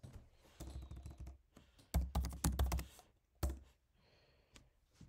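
Typing on a computer keyboard: two quick runs of keystrokes, then a couple of single key presses near the end.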